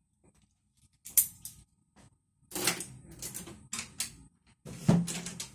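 Clicks, clacks and rattles of a metal padlock and small tools being handled on a table, in several separate bursts with quiet gaps, a sharp knock about a second in and the loudest one near the end.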